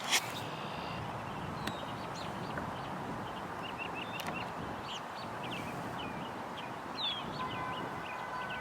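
Birds calling: a steady scatter of short, high chirps, some sliding in pitch, over steady outdoor background noise.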